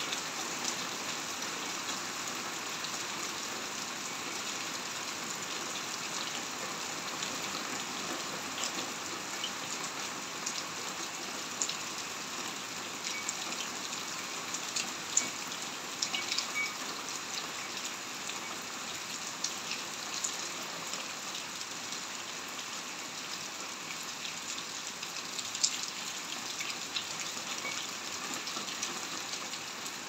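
Heavy rain falling steadily on concrete and walls, with scattered sharp ticks of drops striking close by. Two drop hits stand out, about halfway through and again near the end.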